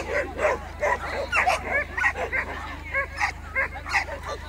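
A dog barking and yipping repeatedly and excitedly, about three short barks a second.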